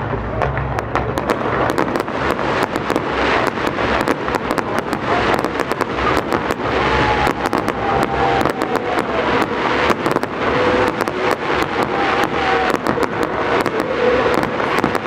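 Aerial fireworks going off in quick succession: a dense, continuous stream of bangs and crackles from shells bursting overhead.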